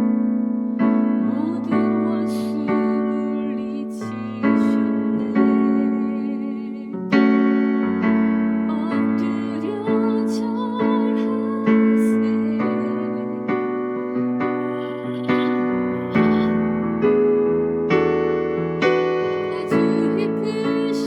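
A hymn played slowly on an electric piano, full chords struck about once a second and left to ring and fade.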